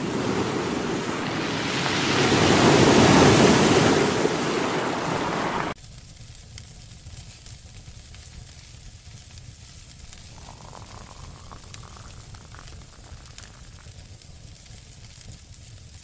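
Ocean surf washing over rocks, swelling to a peak about three seconds in, then cut off suddenly. After that, the quieter crackle of a small wood campfire with scattered faint pops.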